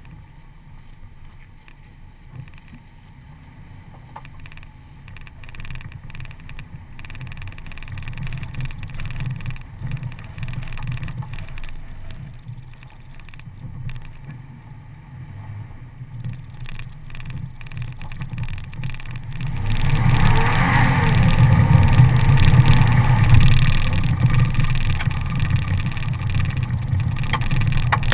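Toyota Tacoma pickup driving on a dirt track, heard from a camera mounted on the outside of the truck: a low engine rumble that slowly builds. About two-thirds of the way through it gets much louder as wind and tyre noise rush in while the truck picks up speed.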